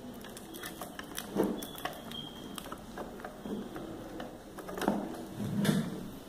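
Handling sounds: a few light knocks and clicks as a power connector is plugged into a thermal receipt printer, with the loudest knocks about a second in, near five seconds and just before the end.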